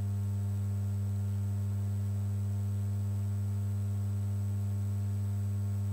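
Steady low electrical hum, one unchanging low tone with fainter higher overtones, at an even level and with nothing else over it.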